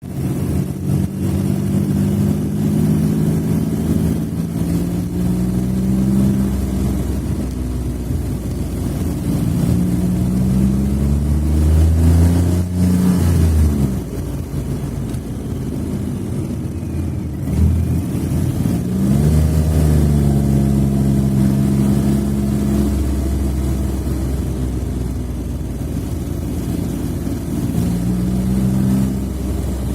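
Smart fortwo (451) engine running and being revved several times, its pitch rising and then dropping back.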